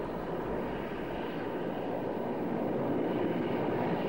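Mi-24 gunship helicopter flying overhead: a steady noise that grows a little louder toward the end.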